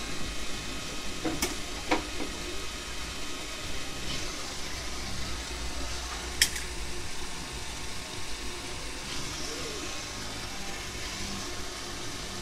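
iRobot Roomba 651 robot vacuum running with a steady whirring hum, broken by a few sharp clicks, the loudest about six seconds in.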